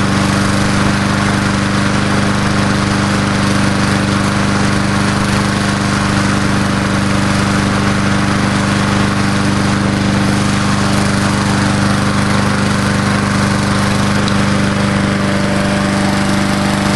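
Briggs & Stratton 3.75 hp single-cylinder engine of a Murray Dynamark 22 walk-behind mower running steadily at constant speed, its control held with a zip tie, in its first run after seven years in storage.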